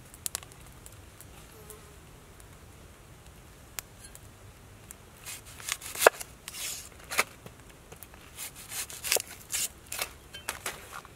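Cleaver cutting vegetables on a wooden chopping board: a run of irregular sharp knocks and crunchy cuts that starts about five seconds in.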